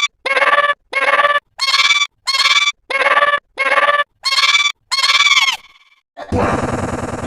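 A short, pitched cartoon sound clip, like a honking call, is repeated back-to-back about eight times, about one and a half times a second, as a stuttering 'hiccups' effect, then trails off. About a second before the end, a different, dense sound with a loud low buzz starts abruptly.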